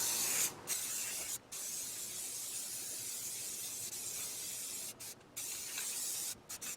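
Spray paint hissing from a nozzle in long passes, broken by a few brief pauses between strokes.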